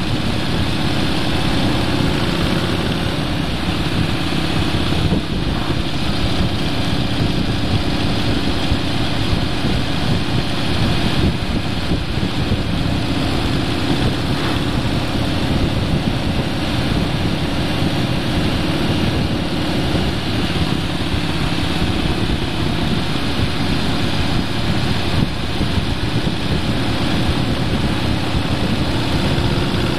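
Steady engine drone with wind and road noise from a vehicle cruising along a winding road.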